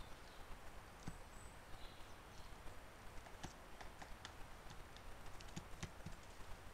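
Faint, irregular clicks and taps of a small animal moving over the logs of a woodpile, coming more often in the second half.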